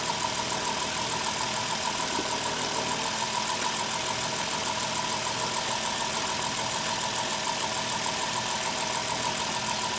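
A Dodge Caravan's 3.8-litre V6 idles steadily, with a steady high tone over the engine sound, while its newly fitted alternator and serpentine belt run. The alternator is charging at about 14 volts.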